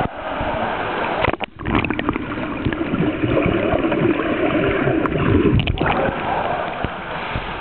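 Pool water splashing and sloshing around a kayak as it rolls over. From about a second and a half in, the microphone is underwater: muffled gurgling and bubbling. Near the end it breaks the surface back into loud splashing.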